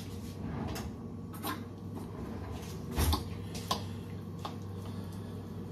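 A fork clinking and knocking against a dish of shredded chicken as it is served, a few separate light clicks with one heavier knock about three seconds in, over a steady low hum.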